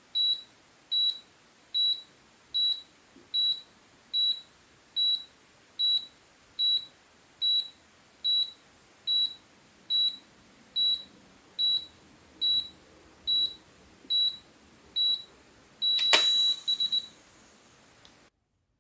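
Digital blood pressure monitor beeping steadily, about one short high beep a little faster than once a second, in time with the detected pulse. Near the end comes a longer beep with a click, then three quick beeps as the measurement finishes.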